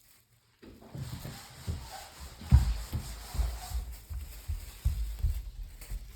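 Irregular low thumps and rubbing, with one loud thump about two and a half seconds in.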